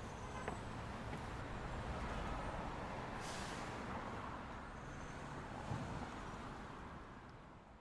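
Steady city street traffic noise, a low rumble with hiss, fading away near the end.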